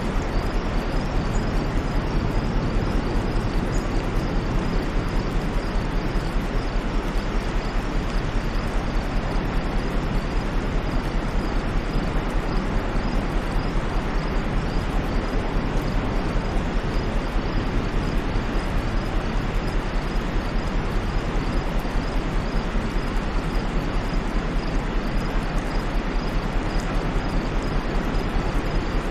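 Steady white noise: an even, unchanging hiss across all pitches, with a low hum underneath.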